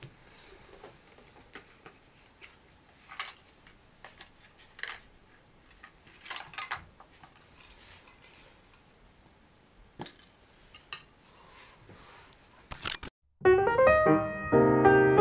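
Faint rustling and scattered small clicks of hands handling small objects and packaging: a backpack, cables, a small box. About thirteen seconds in, piano music starts abruptly.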